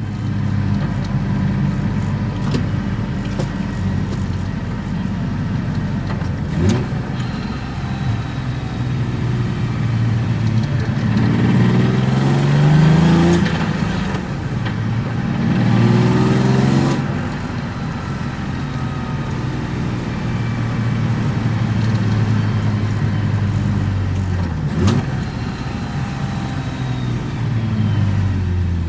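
BMW E36 325i's M50B25 straight-six with aftermarket headers and exhaust, heard from inside the car while driving. The engine note climbs twice under acceleration, about eleven and fifteen seconds in, and two sharp knocks come through at about seven and twenty-five seconds.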